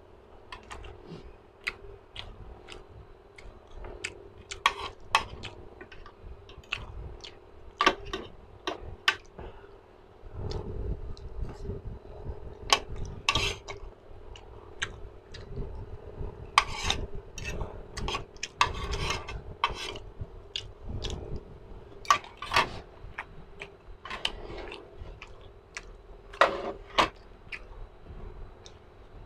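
Close-miked mukbang eating sounds: chewing and wet mouth smacks with sharp clicks and clinks of an eating utensil, scattered irregularly, over low rumbling handling noise.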